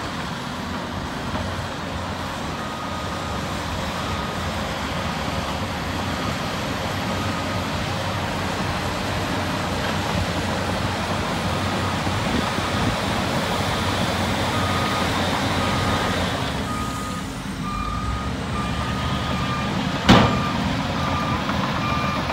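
Dump truck running with its bed tipped up as a load of rock and dirt slides out, a steady rumbling noise. A reversing alarm beeps about twice a second throughout, and a single sharp bang comes near the end.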